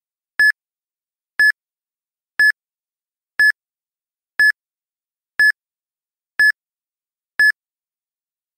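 Electronic countdown-timer beeps, one short high beep each second, eight in a row with silence between, ticking off the seconds of a countdown.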